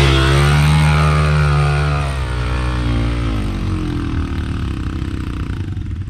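Small kids' dirt bike engine revving hard as it climbs a steep hill, the pitch rising and falling with the throttle, growing fainter after about two seconds, over a steady low engine drone.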